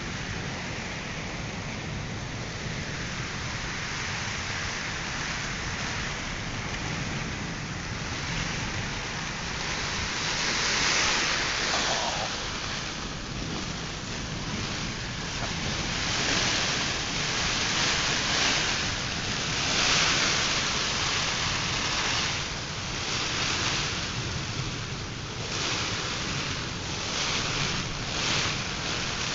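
Rain and gusting wind of a Kalbaishakhi (nor'wester) storm: a steady rushing hiss that swells and eases in waves every few seconds, loudest in the second half.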